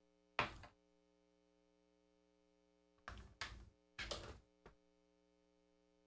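Near silence broken by a few brief, soft handling noises: one short knock or rustle about half a second in, then four more close together a little after three seconds in.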